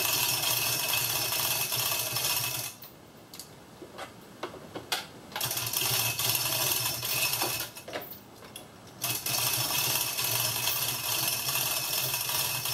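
Manual chain hoist lifting an engine, its hand chain rattling through the hoist as it is pulled hand over hand. The pulling comes in three long runs of a couple of seconds each, with short pauses and a few clicks between them.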